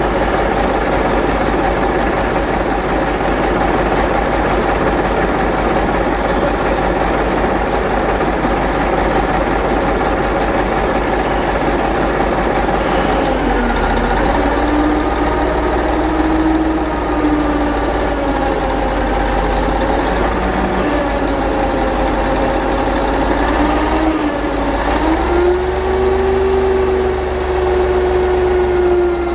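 Heavy truck engine running steadily, then from about halfway through its revs rise and fall several times, settling at a higher pitch near the end.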